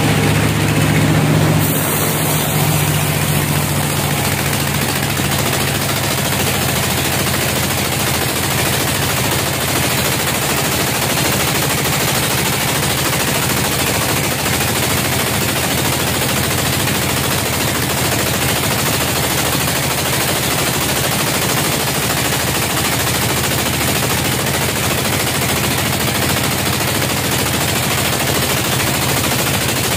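Band sawmill cutting through a log: a loud, steady, harsh noise of the blade in the wood. A lower machine hum gives way to it about two seconds in.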